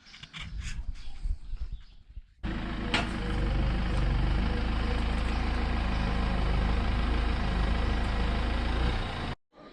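A few scattered knocks, then a motor running steadily for about seven seconds, starting and stopping abruptly.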